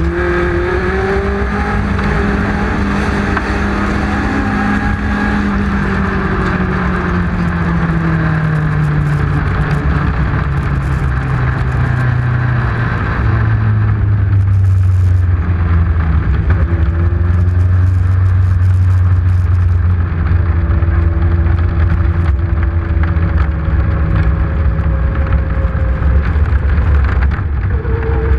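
Legend race car's engine, recorded on board. Its pitch falls slowly over the first dozen seconds, then it runs at a steadier, lower pitch, with constant wind and road noise.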